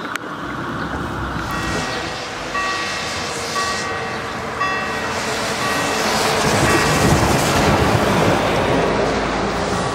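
German level-crossing warning bell ringing with repeated short electronic dings as the crossing activates. A heavy truck passes over the crossing and is loudest a little past the middle.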